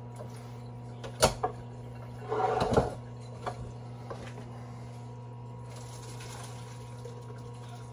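Kitchenware being handled: two sharp knocks a little over a second in, then a brief clatter, over a steady low hum.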